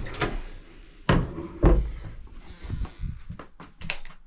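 A series of dull knocks and thumps from handling around a wooden door frame, the two loudest close together about a second in, with a sharp click near the end.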